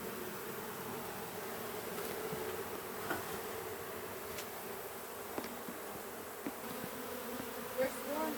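Honeybee colony buzzing steadily as its nest is opened up, a dense drone, with a few faint clicks and taps over it.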